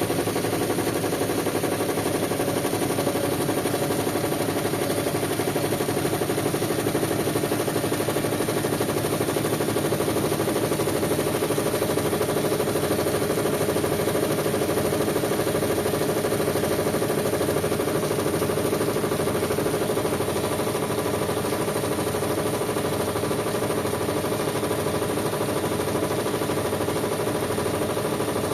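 Whirlpool washing machine running steadily on its Quick Wash cycle: an even motor hum with a slow low throb about once a second.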